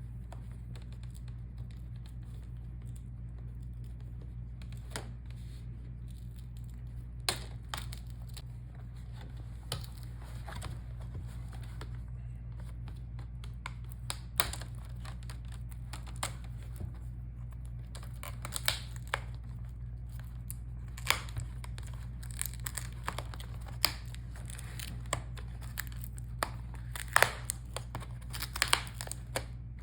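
Plastic clicks and crackles as a laptop's front screen bezel is pried off, its snap clips releasing and its adhesive pulling away. The clicks come sparsely at first, then more often in the second half.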